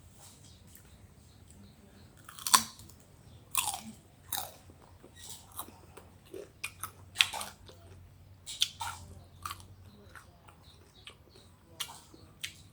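Someone biting into and chewing crisp raw Kaew mango: irregular crunches starting a couple of seconds in, the sharpest first.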